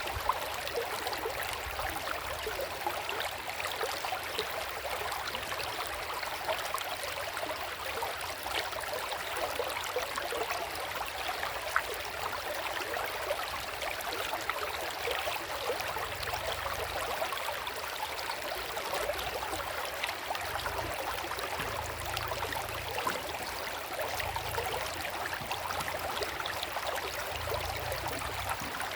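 River water flowing, a steady rushing with a fine, splashy texture that does not change.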